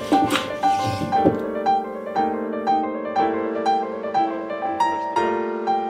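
Background piano music: a run of single notes over held chords.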